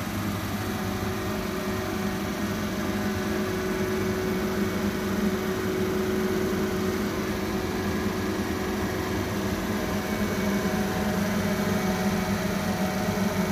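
A fan running steadily, with a constant hum and whoosh under it, a little louder in the last few seconds.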